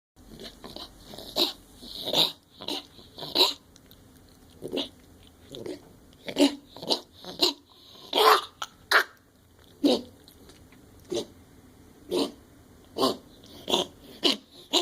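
A pet repeatedly hacking and coughing in short, sharp bursts, some close together and some a second or more apart, the kind of retching cough the owner wonders may be a hairball.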